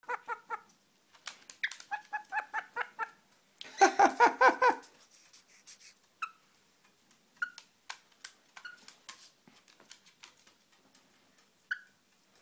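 Black-headed caique laughing: three runs of quick, rhythmic pulsed calls, the third and loudest about four seconds in. After that come a few short chirps and clicks.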